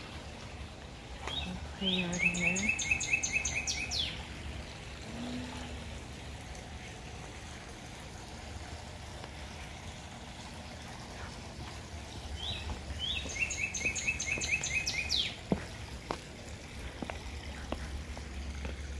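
A songbird sings two short phrases about ten seconds apart, each one or two rising notes followed by a quick run of about seven repeated chirps, over a steady outdoor hiss.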